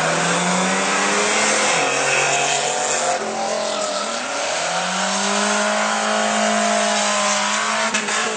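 Racing cars' engines running at high revs on the track, with a hissing rush of tyre and road noise. The engine note climbs, drops sharply about two and four seconds in, then climbs and holds.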